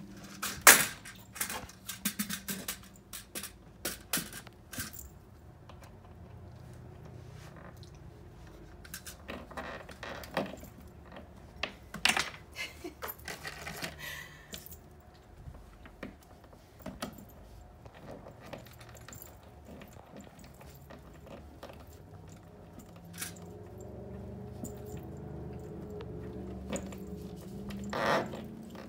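Scattered sharp clicks, taps and knocks of hardware being handled: metal spring tension rods and small wall hooks fitted against the wall, and high-heeled shoes hooked onto the rods. The clicks come in clusters, the loudest about a second in, a busy run around the middle and another knock near the end.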